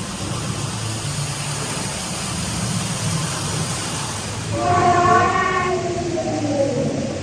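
Steady low rumble of a boat ride's machinery and water. About four and a half seconds in, a loud horn-like call is held for about a second, followed by a shorter wavering tone.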